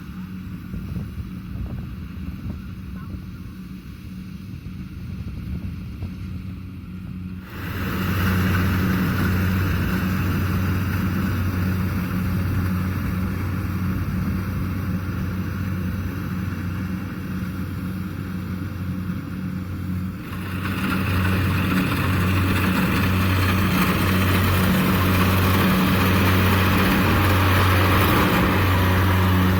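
Kubota DC70 Plus rice combine harvester's diesel engine and threshing machinery running steadily with a constant low hum. The sound jumps suddenly louder twice, after about seven seconds and again about twenty seconds in.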